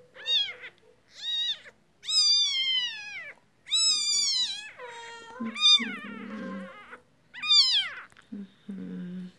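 Newborn Siamese kitten mewing over and over, about six high cries that rise and then fall in pitch, two of them drawn out. It is a hand-reared kitten crying while it waits to be fed.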